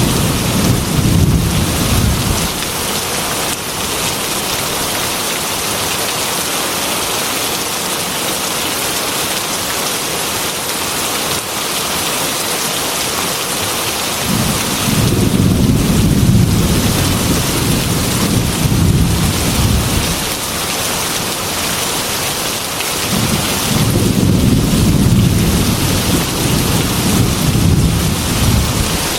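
Heavy rain falling steadily, with rolling thunder rumbling three times: right at the start, again about halfway through for several seconds, and once more near the end.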